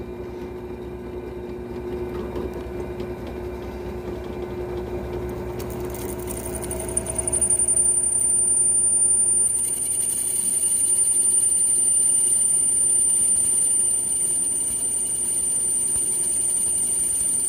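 Benchtop drill press running with a masonry (concrete-anchor) bit grinding into the bottom of a ceramic coffee mug. A steady motor hum runs throughout; about six seconds in, a high, steady whine joins it and the sound grows louder as the bit is cranked down into the ceramic.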